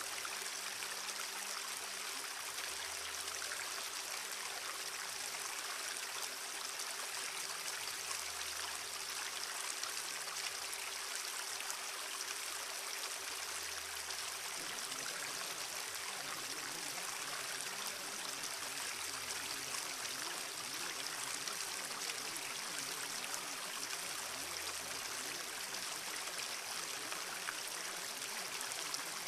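Steady rushing noise like running water, with low tones that swell and fade every five or six seconds and a faint steady hum, part of which drops out about halfway through.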